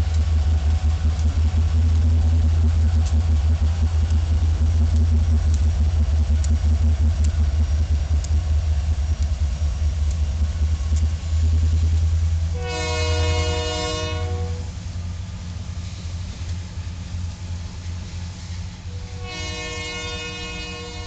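Union Pacific diesel locomotives passing close by with a loud low engine rumble and wheels clicking over the rail. As autorack cars roll past the rumble eases, and a multi-chime locomotive horn sounds twice: a blast of just over a second past the middle and another starting near the end.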